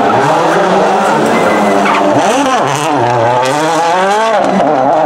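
Toyota Yaris WRC rally car's turbocharged 1.6-litre four-cylinder engine revving hard through a tight corner. The revs fall away about two seconds in as it slows for the turn, then climb again under acceleration, with a sudden drop near the end at an upshift.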